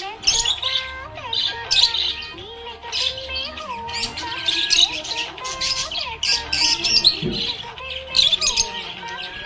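Budgerigars chirping and chattering in rapid, sharp bursts over background music with a melody that steps from note to note.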